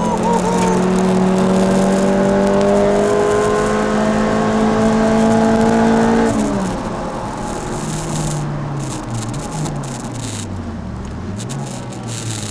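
Peugeot 306 Rallye's four-cylinder engine heard from inside the cabin. The revs climb steadily under load for about six seconds, then fall away. The engine then runs at lower revs that rise and fall, with a few short hissy noises.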